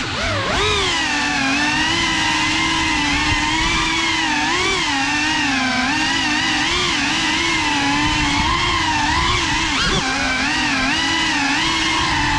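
Cinelog35 cinewhoop quadcopter's ducted propellers and motors whining loudly, the pitch wavering up and down continuously with the throttle.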